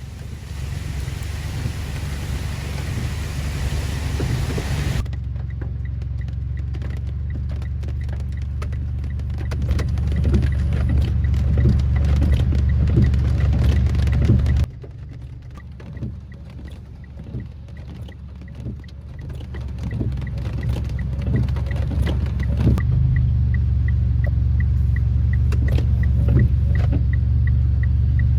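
Strong wind buffeting the microphone, a heavy low rumble that changes abruptly with each cut between shots. A faint regular ticking runs under it in some stretches.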